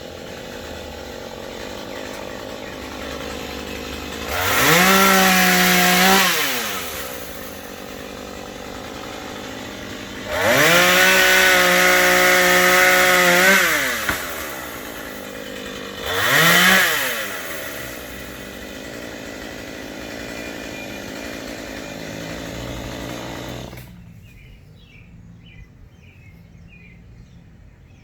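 Husqvarna 440 two-stroke chainsaw idling, revved up to full speed three times, the middle run held for about three seconds, then switched off about four seconds before the end.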